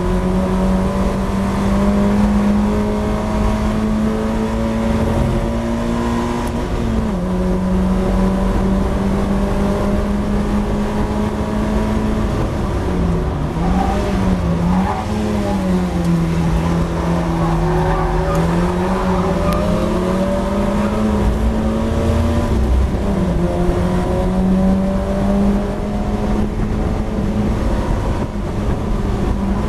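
Mazda MX-5 race car's four-cylinder engine heard from the open cockpit, running hard under load at a fairly steady pitch, with brief dips and a wavering pitch as the throttle is lifted and fed back in through corners.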